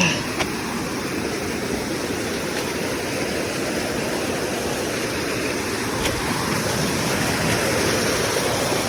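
Steady rush of flowing water from a mountain stream, an even noise with no breaks.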